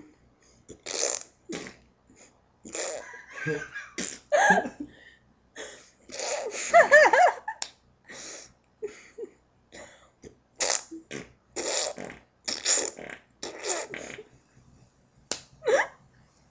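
A run of short, made-up fart noises from people imitating farts, coming one after another with brief gaps. One longer, wavering one sounds about halfway through.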